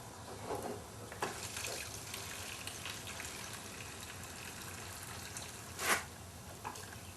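Gasoline trickling into a mower's fuel tank, a faint steady pour, with two short knocks, one about a second in and one near the end.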